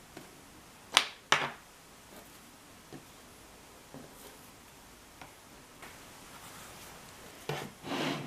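Hands handling raw dough pieces and a plastic cookie cutter on a wooden board: two sharp knocks about a second in, a few faint taps, then a longer knock and rub near the end.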